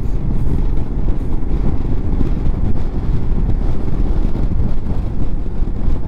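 A motorcycle riding along, heard from the rider's own camera: a steady low rumble of engine, road and wind noise.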